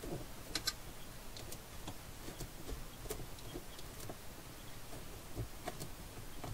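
Faint, irregular small clicks and ticks as a screw is turned out of the ceiling and the plastic base of a smoke alarm is worked loose by hand, with a sharper pair of clicks about half a second in.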